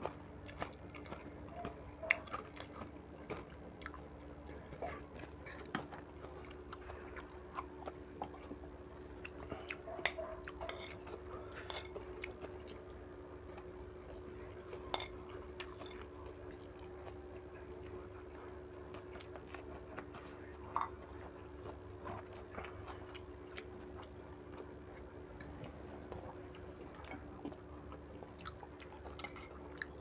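Someone eating noodle soup: scattered clicks and clinks of a metal spoon and fork against a ceramic bowl, with chewing and slurping, over a steady low hum.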